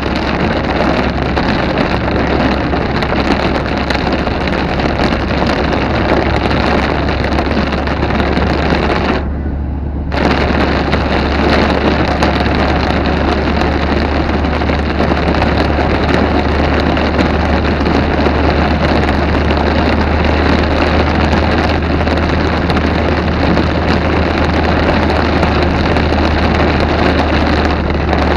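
Heavy rain pouring in a thunderstorm, a steady dense hiss, with wind buffeting the microphone as a low rumble underneath. About nine seconds in the sound goes briefly muffled for under a second.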